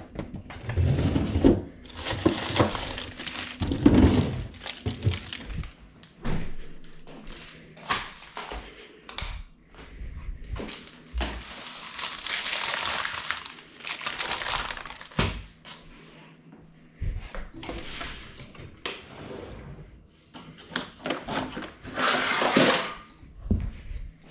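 Kitchen preparation sounds: irregular knocks and thunks mixed with stretches of rustling and crinkling, like packaging and utensils being handled on a counter.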